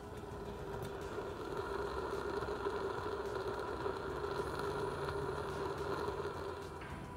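Liquid-fuel camping stove burner running inside a steel duct pipe, a steady rushing burn that swells over the first two seconds and eases near the end.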